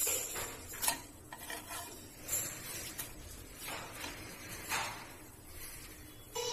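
Steel spatula scraping and pressing a flatbread on an iron tawa, with a few short scrapes against the pan about a second apart.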